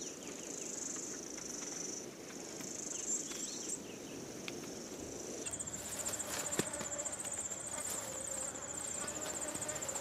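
Insects trilling in a savanna ambience: a steady high-pitched buzz that changes about five and a half seconds in to a quickly pulsing trill, with faint rustles and clicks.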